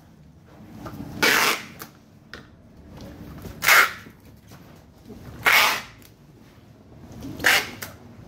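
Packing tape being pulled off a handheld tape gun onto a cardboard box: four short ripping pulls about two seconds apart.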